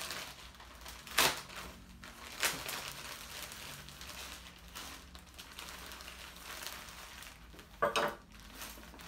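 A shipping package being handled and opened: packaging rustling and crinkling, with three short sharp clacks as it is knocked or set down.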